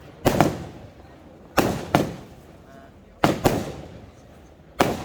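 A 25 mm firework cake firing shot after shot: sharp bangs, mostly in close pairs, with a new pair about every one and a half seconds, each fading in a short rumble.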